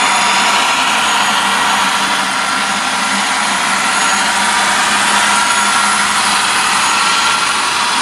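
Model diesel-locomotive freight train running on a layout: a steady engine-like drone with a whir and hiss and little deep rumble.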